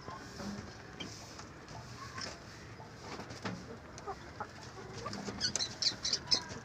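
Native country chickens clucking in scattered short calls, with a quick run of high chirps near the end.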